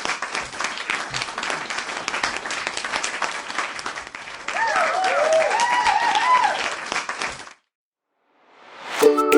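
Crowd applause and cheering, with a voice calling out in short rising-and-falling tones about five seconds in. The applause cuts off sharply, and after a moment's silence a plucked-string tune fades in near the end.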